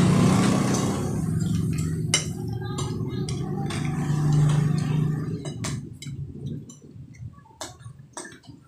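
Diners' forks clinking against plates and bowls, with sharp scattered clinks throughout. A low steady rumble underneath fades away a little past halfway.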